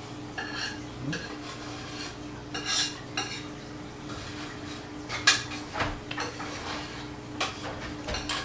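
Metal utensil clinking and scraping on a ceramic plate as dragon fruit flesh is mashed for its juice, in scattered light knocks, over a faint steady hum.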